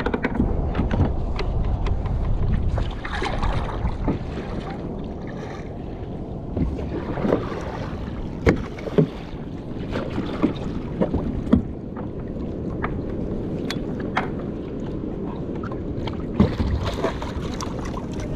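Fishing kayak being paddled: paddle blades splashing into the water and water rushing along the hull, with a few sharp clicks and knocks scattered through.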